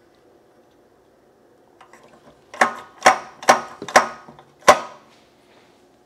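The ice-selector solenoid mechanism of a Frigidaire side-by-side fridge's ice maker assembly being worked by hand: a few faint ticks, then five sharp clacks about half a second apart as it snaps back. It is moving freely after being lubricated, without sticking and returning each time.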